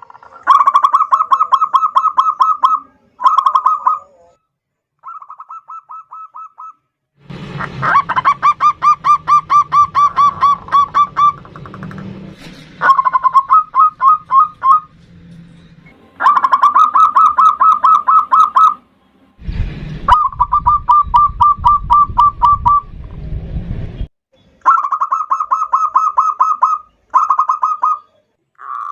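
Zebra dove (perkutut) singing: repeated bouts of fast, pulsed cooing notes, each bout lasting a few seconds with short pauses between, one bout much fainter. A low rumble of background noise sits under two of the bouts.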